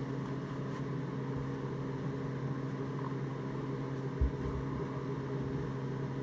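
Miller Econotig transformer TIG welder humming steadily while switched on in AC high-frequency mode with no arc struck, a mains hum with several overtones. The owner asks listeners whether this noise sounds wrong, as he cannot get the machine to puddle aluminum. A brief low thump about four seconds in.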